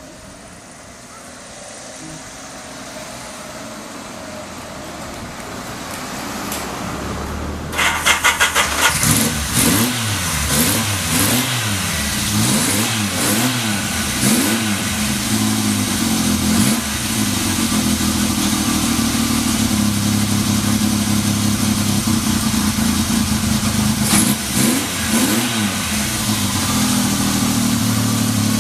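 Yamaha XS750 three-cylinder engine started on the electric starter, catching about eight seconds in. It is blipped up and down several times, settles into a steady idle, and is blipped twice more near the end.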